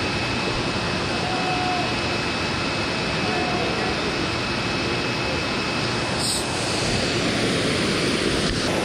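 Steady rushing roar of water pouring over a dam spillway into the river below.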